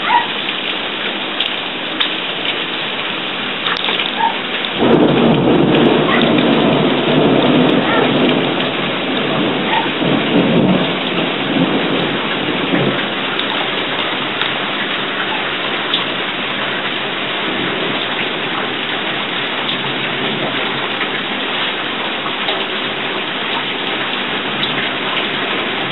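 Heavy thunderstorm downpour, rain pouring steadily onto roofs and surfaces. About five seconds in a long roll of thunder rumbles, then fades away over some eight seconds.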